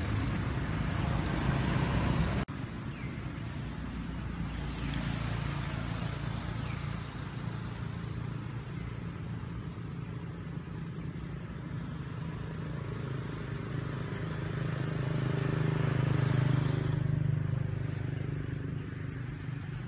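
Steady low engine hum of motor vehicles, growing louder about three-quarters of the way through and then easing off.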